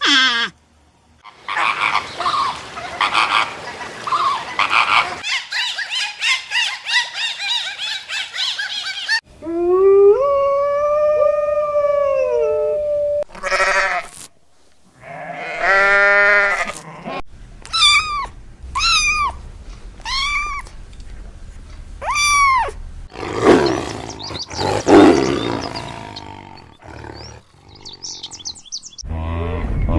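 A series of different animal calls cut one after another: a long pitched call with a rise and fall about ten seconds in, four short falling calls about a second apart, and a rough, noisy call later on.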